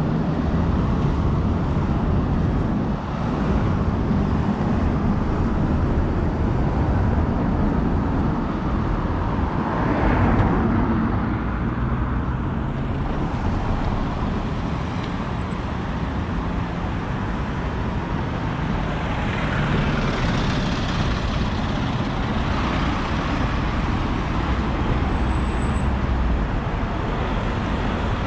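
Steady road traffic on a city street, with the tyre and engine noise of passing vehicles. One vehicle goes by about a third of the way in and another about two thirds of the way in.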